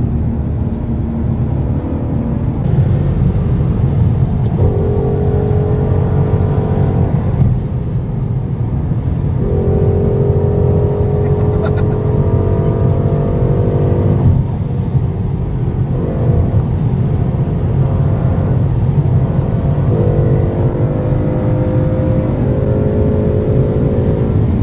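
Ford Mustang GT's 5.0-litre V8 engine running while the car is driven, a steady low rumble throughout. Three times its droning note swells for a few seconds at a steady pitch and then drops back.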